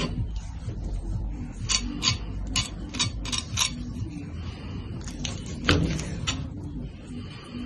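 A knife crunching through the crisp, seared skin of a piece of meat on a wooden board: two runs of sharp crackling clicks, the loudest about two-thirds of the way in, over a low steady hum.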